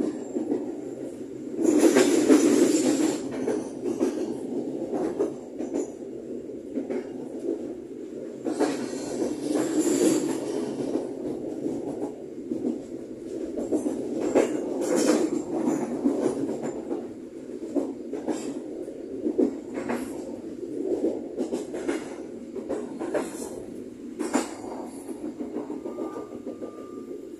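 Passenger train running along the line, heard from the rear of the last coach: a steady rumble of wheels on rail with frequent short clicks and knocks, and louder rushing stretches about two seconds in and again about ten seconds in.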